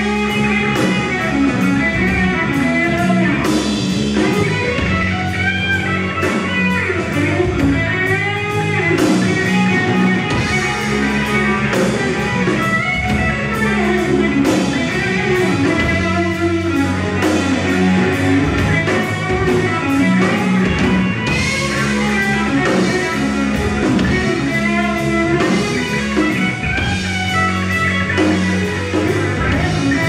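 A live blues-rock band playing: electric guitar, electric bass and drum kit, loud and without a break.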